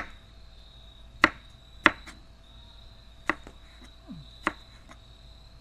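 Large kitchen knife slicing a banana pepper on a plastic cutting board: five separate sharp knocks of the blade hitting the board, spaced irregularly about a second apart.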